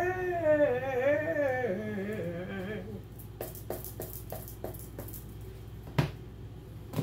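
A woman sings a slow, falling melody with no clear words for about three seconds, then stops. A run of light clicks and taps follows, with a sharper knock about six seconds in and another at the end.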